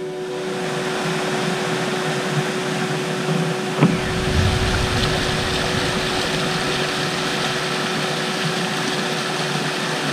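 Steady rushing of a shallow forest stream flowing over rocks, with a single knock about four seconds in.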